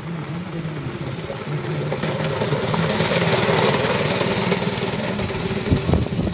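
Go-kart's small single-cylinder engine running as the kart drives past, getting louder as it comes close about three seconds in and then fading as it moves away.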